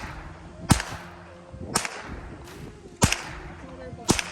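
Four gunshots about a second apart, each a sharp crack with a short ringing tail.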